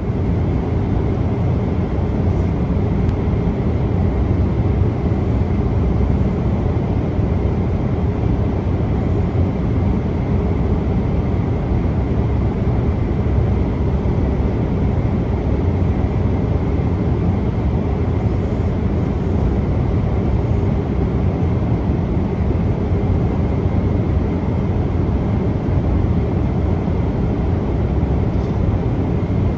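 Airliner cabin noise: a steady low rumble of jet engines and airflow, unchanging throughout.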